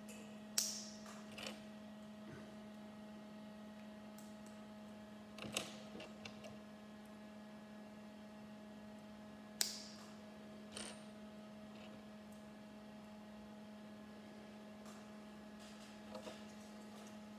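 Small Lego plastic pieces clicking as minifigure parts and tiny weapon accessories are handled and pressed together: a few sharp clicks several seconds apart, the loudest about half a second in and near ten seconds, over a steady electrical hum.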